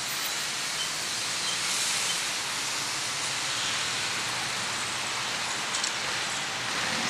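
Steady street traffic noise: an even, hissy wash of passing cars with no single engine standing out.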